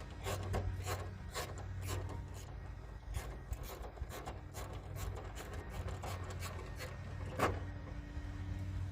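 Hand tools working on car body parts: a run of short scraping and clicking strokes, several a second, with one louder knock near the end, over a steady low hum.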